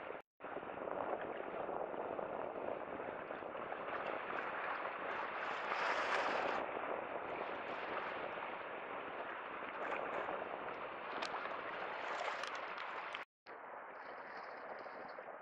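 Sea waves washing against a concrete breakwater, a steady rush that swells louder twice, about six and twelve seconds in. It cuts out for a moment near the end and then goes on quieter.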